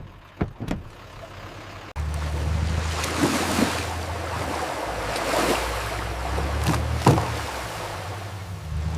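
A few light knocks, then about two seconds in a vehicle's engine comes in suddenly and runs steadily, with a rushing noise of wind or water over it.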